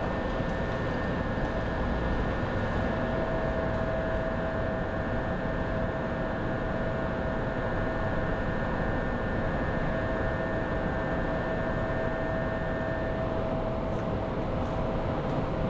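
Steady running noise of a vehicle, with a steady whine over it; a higher part of the whine drops away near the end.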